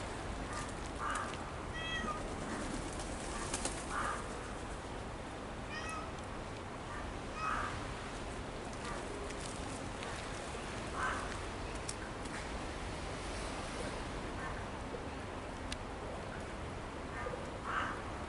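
A cat meowing: several short meows a few seconds apart over a steady outdoor background hum.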